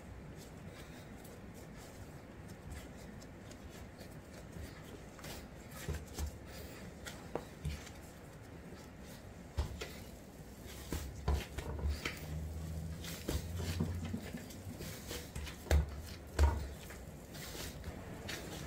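Hands kneading bread dough on a silicone baking mat: soft low thumps and rubbing as the dough is pressed and pushed against the mat, coming in scattered strokes, with the heaviest two thumps near the end.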